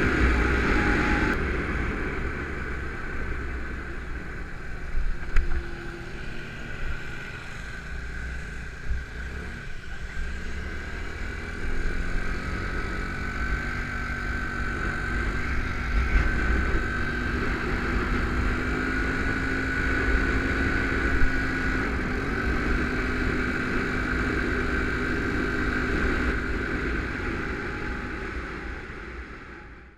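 Small motorcycle's engine running while ridden, with wind buffeting the microphone. The engine note climbs from about ten to sixteen seconds in, then holds with a brief dip a little past twenty seconds, and the sound fades out at the end.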